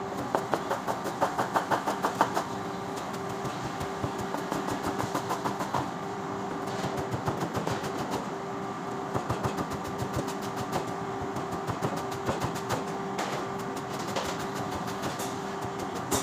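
Chef's knife rapidly chopping fresh coriander on a plastic cutting board, several quick chops a second with the blade knocking the board each time, over a steady hum.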